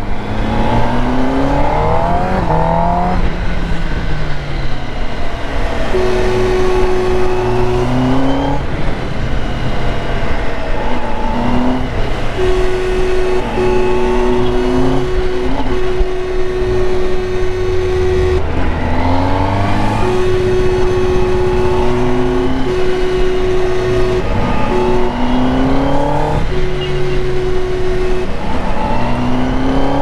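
Kawasaki Ninja ZX-10R's inline-four engine accelerating through the gears in short pulls, its pitch climbing over a second or two and dropping again and again. A steady horn sounds in several long blasts over it.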